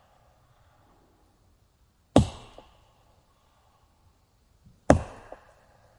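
Wood being chopped with an axe: two sharp chops a little under three seconds apart, each fading quickly, with a faint knock just after each one.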